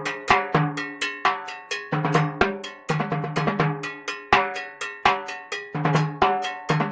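Drums played fast with sticks: a dense run of sharp strokes over ringing, tuned drum tones, with bright metallic hits mixed in.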